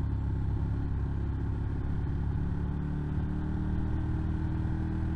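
Ducati motorcycle's V-twin engine running steadily while riding along, a continuous low drone with no sharp changes.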